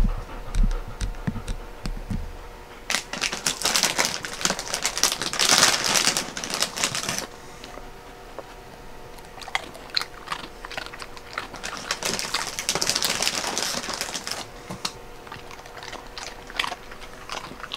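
Rustling and quick clicks from two dogs shuffling about close to the microphone, in bursts about three to seven seconds in and again around twelve to fourteen seconds.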